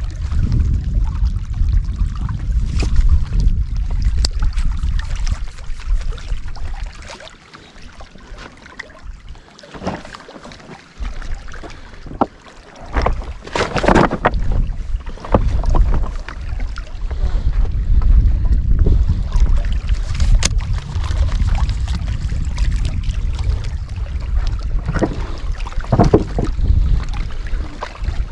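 Wind buffeting the microphone as a low rumble, easing off for a few seconds about a third of the way in. Scattered knocks and scrapes of footsteps on loose rock come in the middle and near the end.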